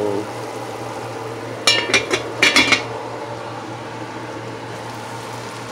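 Glass pot lid clinking against the rim of a stainless steel pot, several quick clinks over about a second, a couple of seconds in, over a steady low hum.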